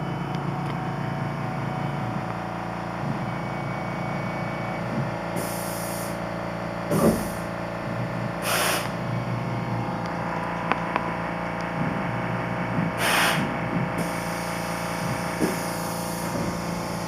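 Tormach PCNC 1100 CNC mill machining MIC6 aluminium plate: a steady hum from the spindle and drive motors, broken by several short hissing bursts, one with a thump about seven seconds in.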